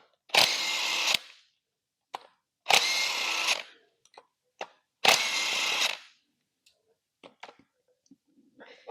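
A handheld power driver run in three short, steady bursts of about a second each, spinning out bolts, with a few small metal clicks between and after.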